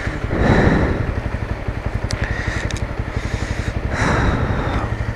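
Motorcycle engine running steadily with an even, low pulse, with two brief swells of hiss about half a second in and about four seconds in.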